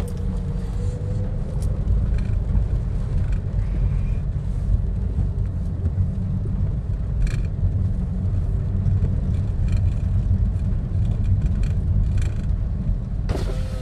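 Car driving on a wet road, heard from inside the cabin: a steady low rumble of engine and tyres, with a few light ticks.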